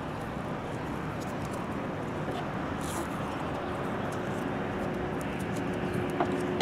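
A distant engine drone that slowly grows louder, with a steady hum coming in about halfway through.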